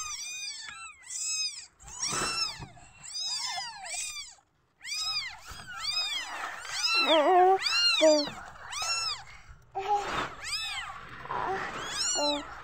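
Newborn kittens mewing over and over: thin, high calls that rise and fall, several a second in clusters, with a few lower, longer calls mixed in midway and near the end. These are the unsettled mews that newborn kittens give when they feel insecure.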